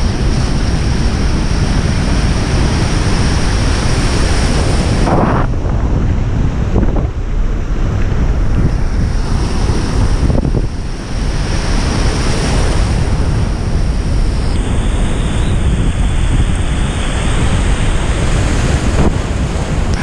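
Surf breaking and washing around at a reef edge, a steady loud rush of waves with swells in loudness as sets come through, and wind buffeting the microphone.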